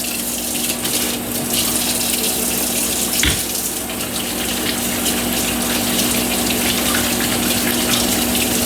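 Water running steadily from a kitchen tap, with a single knock about three seconds in.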